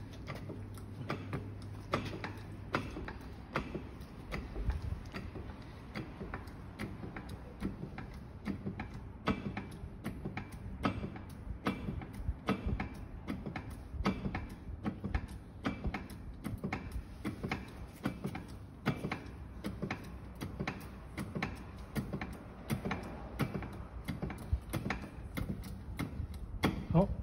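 Uneven metallic clicks and ticks, a few a second, as a hydraulic puller draws a multi-groove belt pulley off the roller mill's roll shaft. A low hum runs under the first few seconds, then stops.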